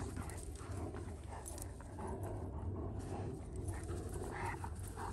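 A German Shepherd puppy and another dog playing together: scuffling and short, scattered dog noises.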